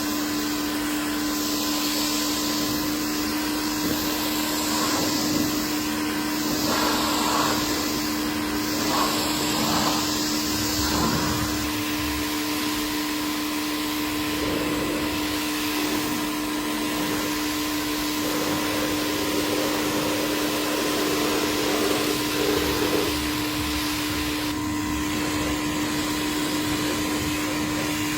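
Vacuum cleaner running steadily with a constant motor hum over a rush of air; the airflow noise swells now and then.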